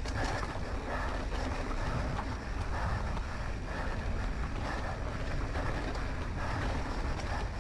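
Wind buffeting a moving camera's microphone over the steady rolling rumble and rattle of a mountain bike riding down a dirt trail.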